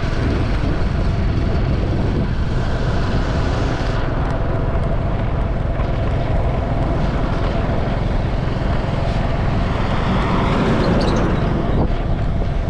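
Steady vehicle running noise with wind on the microphone, an even low rumble with a faint constant tone.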